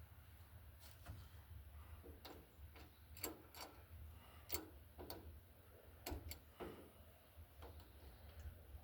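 Light, irregular metal clicks and taps from hand tools working on battery cable terminals, over a faint low background rumble.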